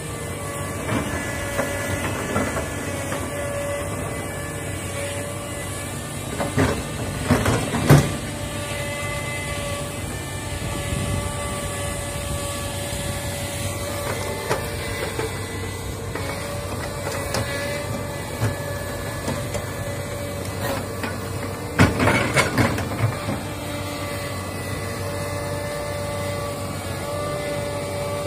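Komatsu hydraulic crawler excavator working: a steady diesel engine rumble with a hydraulic whine over it. There are two bursts of loud, sharp cracks and knocks, about seven seconds in and again around twenty-two seconds in, as the bucket rakes through brush.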